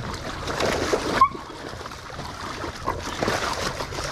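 Splashing and sloshing in shallow muddy creek water as hog dogs and men struggle with a caught hog, coming in uneven surges, with a short sharp cry a little after a second in.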